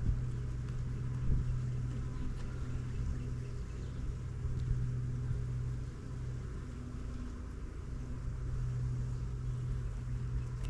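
Steady low hum of a honeybee colony buzzing around an opened hive, with a couple of light knocks from frame handling near the start.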